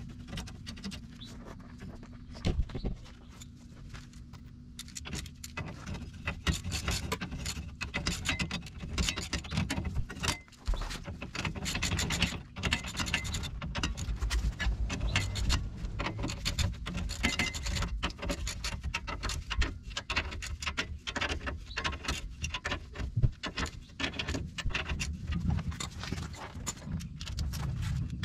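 Hand ratchet clicking in quick, repeated strokes, with metallic clinks of the tool, as the nuts on the truck's rear-axle leaf-spring U-bolts are run down and tightened. The clicking thickens from about six seconds in.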